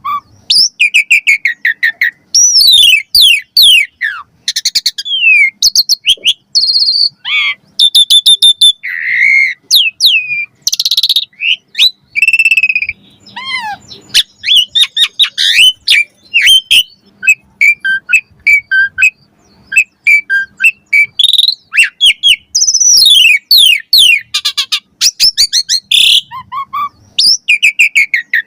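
Asian pied starling (jalak suren) singing loudly. It pours out a fast, varied string of whistles, chirps, rising and falling slurs and rapid trills, with short pauses between phrases.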